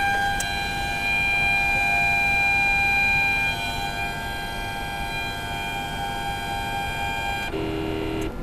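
CNC milling machine's stepper motors whining as the axes travel during a homing (reference) run. The whine is a steady high tone of several pitches that shifts about halfway through, then drops to a lower tone near the end as the motion changes.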